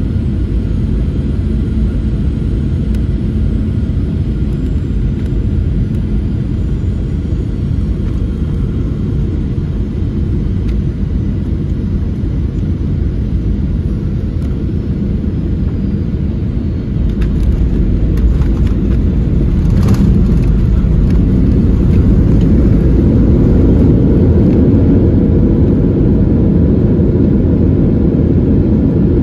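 Jet airliner landing, heard from inside the passenger cabin: a steady low rumble of engines and rushing air, a few sharp knocks a little past the middle around touchdown, then louder for the last third as the plane rolls down the runway.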